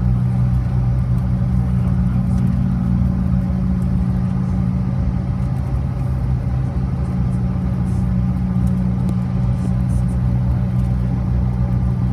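Cabin noise inside a CRJ-700 regional jet taxiing: a steady low drone from its rear-mounted GE CF34 turbofans at low thrust, with a constant deep hum.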